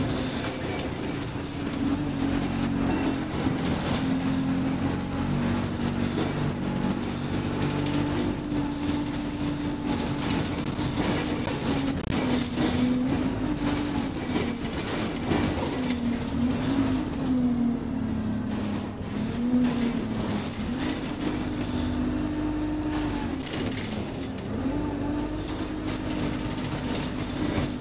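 Bus engine and drivetrain heard from inside the passenger saloon while driving: a steady droning hum that slowly rises and falls in pitch with the speed, over road noise and small rattles from the body. The bus is running in limp mode.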